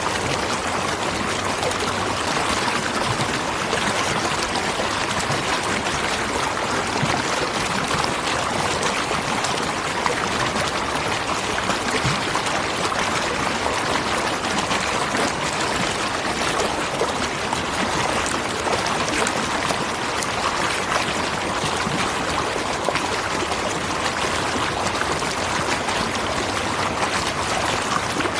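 Waterfall: water falling and rushing over rocks in a steady, even splashing noise.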